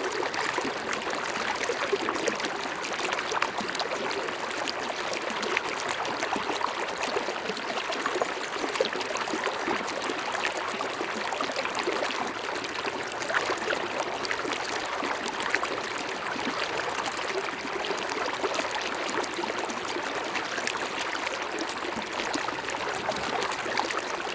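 River water flowing: a steady rush with many small splashes and ticks running through it.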